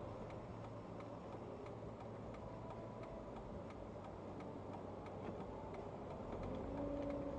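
Steady light ticking, about three clicks a second, over the low rumble of a car cabin while driving.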